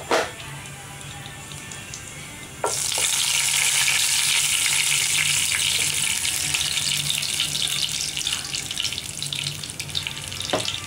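A short knock right at the start, then, under three seconds in, whole spices (fennel, cumin, black peppercorns and cinnamon) suddenly begin sizzling in hot oil in a nonstick frying pan. The sizzle is a steady, loud hiss as the spices splutter, the stage at which the onions go in.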